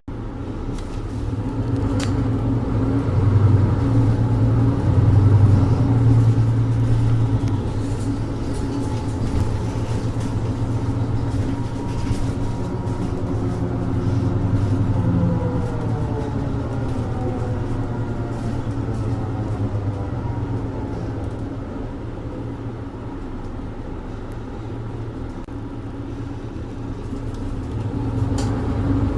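Mercedes-Benz Citaro 2G city bus with its OM470 inline-six diesel and ZF EcoLife automatic, heard from on board. The engine pulls up loud in the first few seconds and runs on steadily. About halfway its note glides down, it goes quieter, then it rises again near the end.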